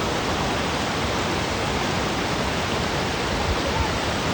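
Steady roar of the Ganga's whitewater rapids, rushing water with no break or change.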